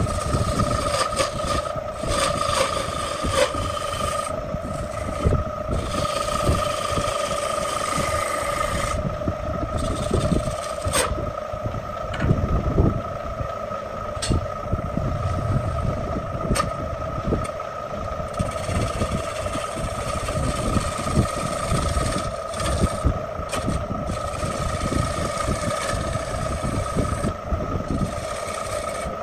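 Electric wood lathe running with a steady hum while a hand-held gouge cuts the spinning wooden bowl, making a hiss of shavings in several bursts. Near the middle the cutting stops for several seconds and only the lathe's hum goes on.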